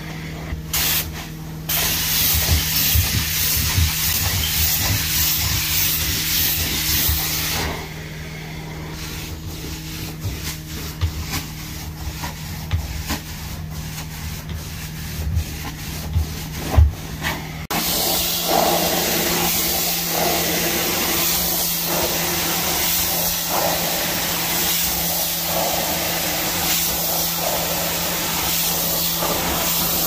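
Carpet steam cleaner's (hot-water extraction) stair tool worked over carpeted stair treads: a steady hiss of spray and suction over the machine's steady hum. The hiss drops away for several seconds midway, with low knocks of the tool against the steps, then comes back suddenly and runs on.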